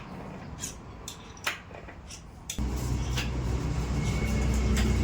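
A few sharp metallic clicks and taps, then a little past halfway a loud, steady low drone starts abruptly and keeps going.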